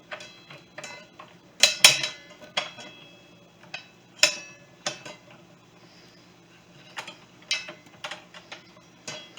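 Metal parts clinking as the blade washer and bolt are handled and fitted back onto a Ryobi 10-inch miter saw's arbor: a string of separate sharp taps, some with a short metallic ring, the loudest pair about two seconds in.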